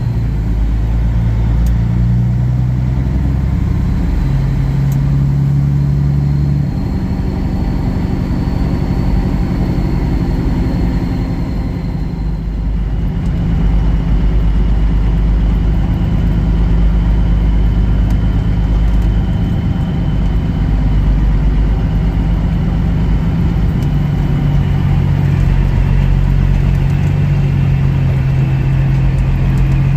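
Semi truck's diesel engine running steadily while driving, with its engine note shifting about 7 and 13 seconds in.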